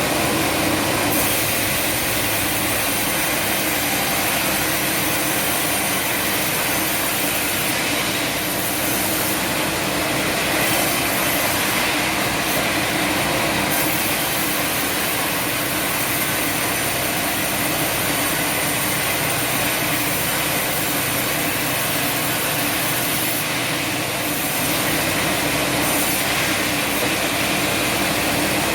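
Sawmill machinery running steadily: an even, loud mix of engine hum and mechanical noise without distinct strikes or pauses.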